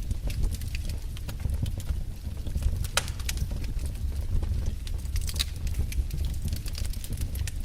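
Wood fire in a fireplace crackling: irregular sharp pops and snaps over a steady low rumble of the flames, with one louder crack about three seconds in.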